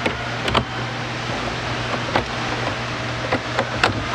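A handful of short, sharp metallic clicks and knocks as the recessed butterfly latches and hardware of an aluminium-edged road flight case are worked open, over a steady low hum.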